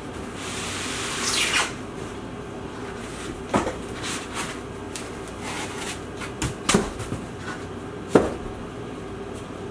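A PC case and its cardboard box and packing being handled during unboxing: a scraping slide about a second in, then several sharp knocks and thumps.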